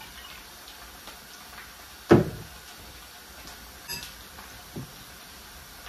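A glass bottle set down with a single loud knock on a wooden worktop about two seconds in, followed by a few light clinks of utensils against a glass salad bowl as the salad is tossed.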